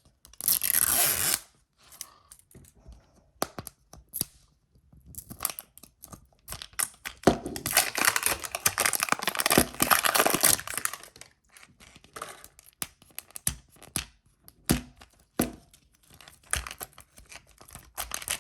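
Plastic shrink wrap being ripped and crinkled off a Zuru Mini Brands capsule ball. There is a short tear about a second in and a longer stretch of tearing and crinkling in the middle, with scattered crackles and clicks of handled plastic in between.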